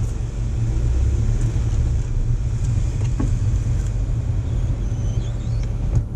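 Low, steady rumble of a car's engine and road noise heard from inside the cabin as the Ford Mustang pulls away slowly.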